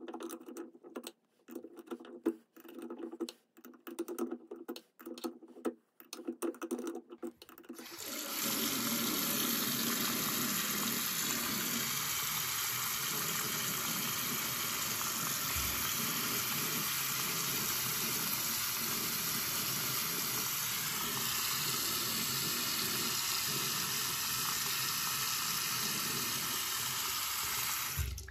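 Light clicks and knocks of a small tool at a Hansgrohe Focus 100 basin mixer's lever for the first several seconds. About eight seconds in, the tap is opened and water runs steadily from the spout into the basin, tested on its newly fitted cartridge, until it is shut off suddenly near the end.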